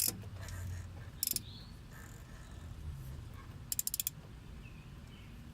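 Ratchet wrench on the crank pulley of a Toyota MR2 AW11's four-cylinder engine, turning the engine over by hand: short runs of sharp clicks, with a quick string of about five near the middle. The engine is making a clicking noise that the owner thinks comes from the oil pan and may be the oil pump.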